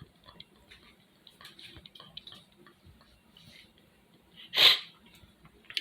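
A person sniffing faintly through a runny nose, then one loud, short sneeze about three-quarters of the way through.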